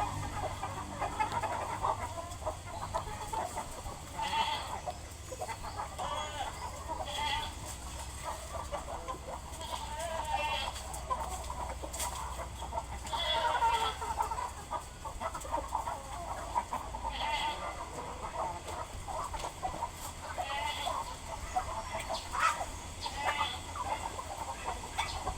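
A flock of chickens clucking and calling, with many short overlapping calls scattered throughout.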